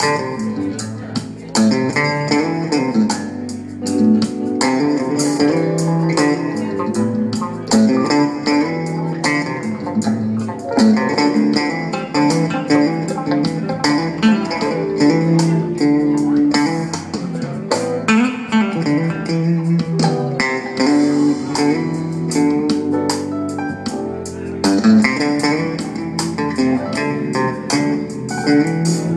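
Electric bass guitar played fast with the fingers, busy runs of notes over an accompaniment with a steady beat of sharp hits.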